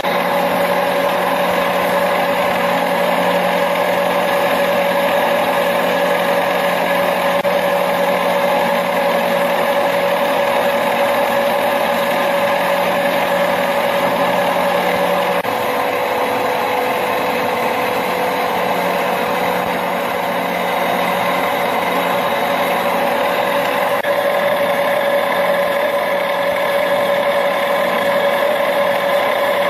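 Gear-cutting machine running steadily as it cuts teeth into a steel pump shaft: a continuous mechanical hum with a steady whine. A lower hum drops out about halfway through.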